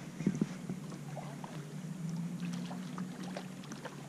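Water lapping against a plastic fishing kayak's hull, with scattered light clicks and ticks over a low steady hum.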